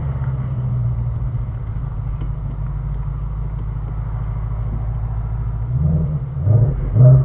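Ford Mustang Shelby GT350's 5.2-litre flat-plane-crank V8 idling steadily, then revved in a few short throttle blips over the last second and a half. The owner hears a rattle from inside the engine at revs between 2,000 and 3,000 rpm, which he suspects is piston slap.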